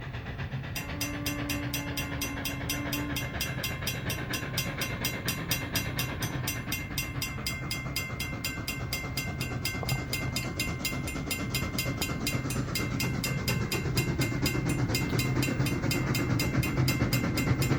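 Steam train approaching, its rumble growing steadily louder, with a brief faint tone about a second in.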